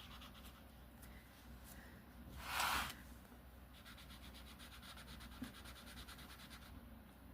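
Pencil colouring on a colouring-book page: quick back-and-forth shading strokes rubbing on paper, with one louder scratchy swish about two and a half seconds in.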